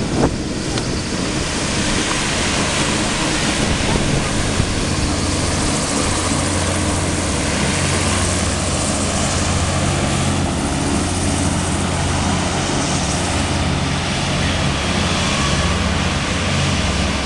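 Griffon 12000TD hovercraft running close by as it comes ashore: a steady rush from its twin ducted propellers and fans, with a low engine drone beneath that grows stronger about five seconds in.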